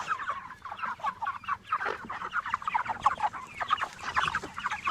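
A flock of pastured meat chickens clucking and chirping, with many short calls overlapping and no pause.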